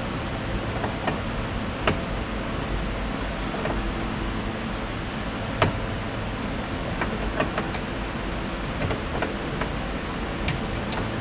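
Irregular light clicks and taps of hand tools on metal suspension parts, over a steady background noise.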